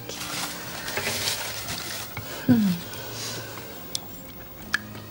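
Soup being ladled and stirred, with spoons scraping and clinking on china plates. About halfway through comes one short, louder low sound that falls in pitch, and near the end a few light clicks.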